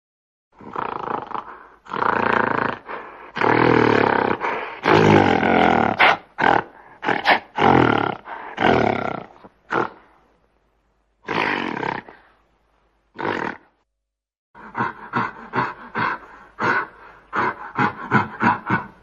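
Sound-designed King Kong creature vocalizations: several long, loud roars, then shorter roaring calls, and after a few seconds' pause a quick run of short grunts, about three a second.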